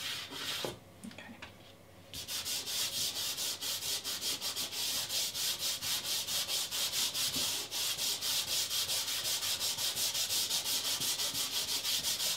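Hand and fingers rubbing soft pastel into the gritty surface of pastel mat paper, blending the colours: fast, even back-and-forth scratchy strokes, about five a second, after a short pause about a second in.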